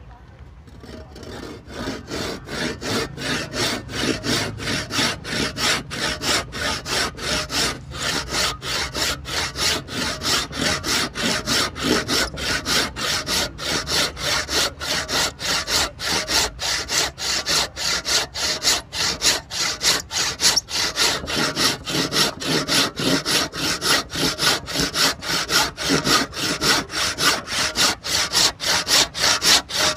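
Hand saw with freshly filed teeth cutting through a wooden board in steady back-and-forth strokes, about two to three a second, starting softly and building up within the first couple of seconds.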